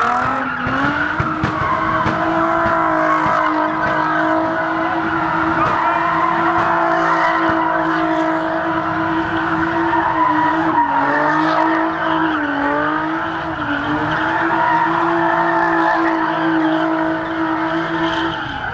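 A car engine held at high revs while the tyres spin and squeal. The engine note rises at the start and stays high and steady, dips a few times about two-thirds of the way through, and drops at the end.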